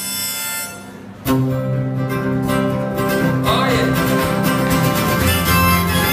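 Acoustic guitar strummed live through a PA. After a brief lull it comes in loud and sudden about a second in, then keeps up a steady, full strum.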